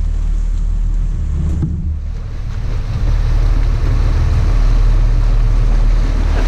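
Sport-fishing boat's engine running steadily with a low hum, under the rush of water and wind along the hull. The engine level dips briefly about two seconds in, then picks up again.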